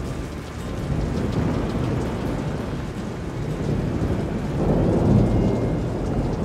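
Thunder rumbling over steady rain, the rumble swelling loudest about four and a half seconds in.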